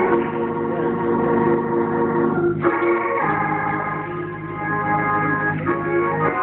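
Organ playing held chords that change every second or two, with no singing.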